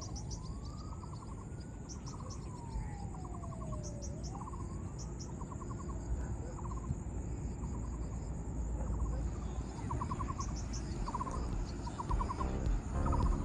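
Insects chirring in the hillside trees: a steady high buzz with repeated short trills, over a low wind rumble on the microphone. A slow tone rises and falls twice in the first four seconds.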